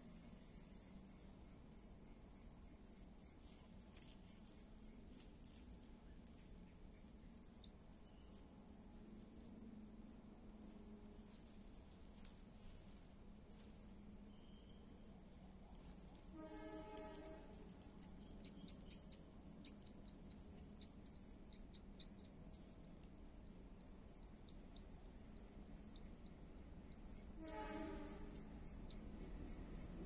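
Night insects, crickets, shrilling steadily at a high pitch, with a faster pulsing chirp joining in from about halfway. Twice a short, lower call sounds, once about halfway through and once near the end.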